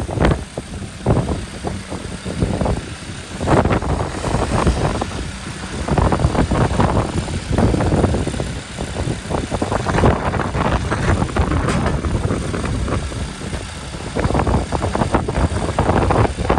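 Backhoe loader's diesel engine running, with wind buffeting the microphone in irregular gusts.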